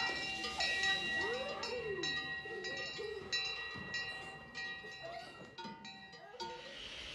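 Metal bells clanking at irregular intervals, each strike ringing on, heard faintly with a few gliding calls in the background.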